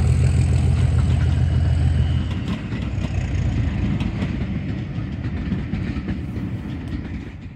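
Diesel-hauled passenger train passing and moving away. The low rumble of the coaches on the track drops off about two seconds in, then fades out with a few light clicks from the wheels.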